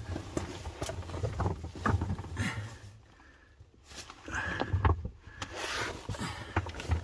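Scuffing and scraping of a person crawling belly-down over the loose stones and dirt of a limestone cave floor, in irregular bursts with a brief lull about three seconds in.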